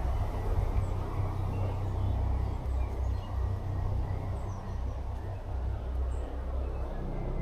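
Faint birdsong of scattered short high notes, taken to be a blackcap singing, over a low rumble.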